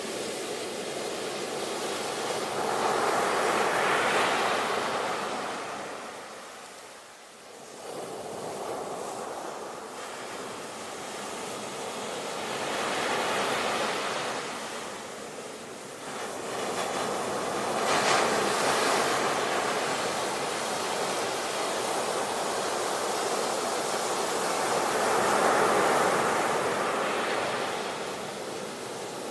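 Sea surf, waves breaking and washing ashore, swelling and falling away four times in slow surges, with a short lull about seven seconds in.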